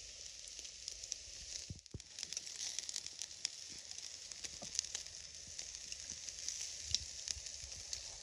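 Marinated meat sizzling on a wire grill grate over glowing charcoal, a steady hiss dotted with many small pops, with a brief break about two seconds in.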